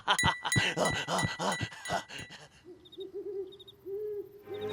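Cartoon sound effects: a fast run of short pitched blips and clicks for about two and a half seconds, then a few soft low rising-and-falling tones with faint high chirps above them.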